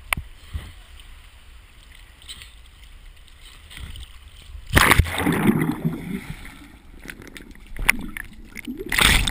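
A person jumping from a cliff hits the water with a loud splash about five seconds in, followed by about a second of churning, bubbling water. Water laps and gurgles around the camera housing at the surface, with another loud splash of water against it near the end.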